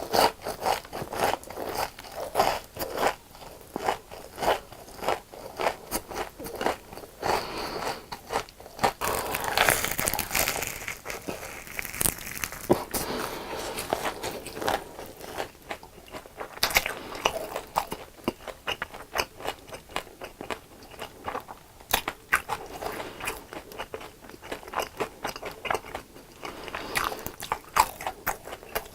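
Biting and chewing crispy deep-fried food, with many sharp crunches in quick succession, thickest about ten seconds in.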